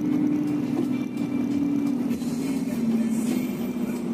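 Bus engine and road noise heard from inside the cabin, a steady hum whose pitch sinks slowly as the bus moves on.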